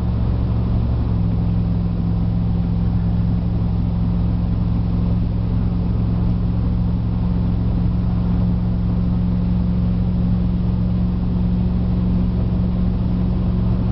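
Dodge pickup's wood-gas-fuelled engine pulling steadily uphill at highway speed under part throttle, heard from inside the cab with road noise. About a second in, its drone steps up slightly and then holds, as the overdrive is locked out to raise the revs.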